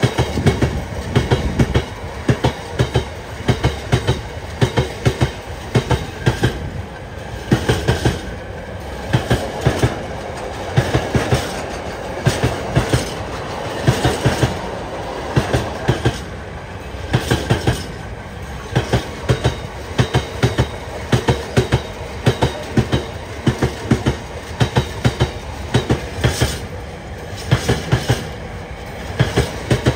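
A train rolling past at steady speed, its wheels clicking over the rail joints in repeated groups of two to four clicks, about once a second, over a continuous rumble of wheels on rail.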